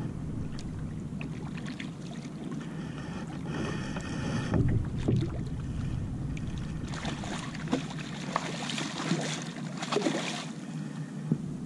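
A hooked kingfish thrashing and splashing at the surface beside a kayak for a few seconds in the second half, over a steady rumble of wind on the microphone. A short buzz with a couple of low thumps comes about four seconds in.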